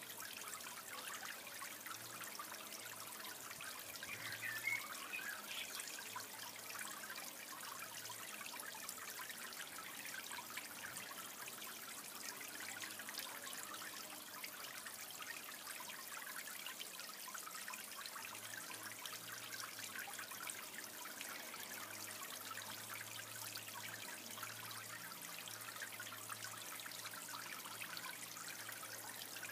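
Water trickling steadily in a small garden fish pond, an even splashing hiss. About four and a half seconds in there is a brief higher-pitched sound that rises in pitch.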